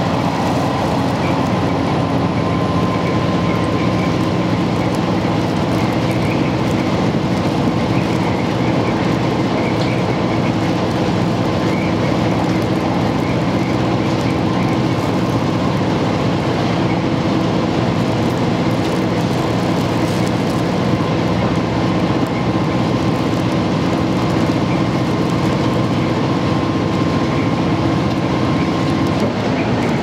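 Inside a KiHa 110 series diesel railcar running at speed: steady engine drone and wheel-on-rail rumble. A steady hum in the drone stops shortly before the end.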